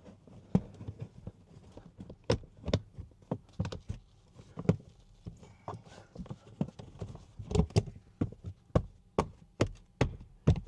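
A string of sharp plastic clicks and taps as parts are pushed and fitted into place, irregular at first and then about two to three a second over the last few seconds.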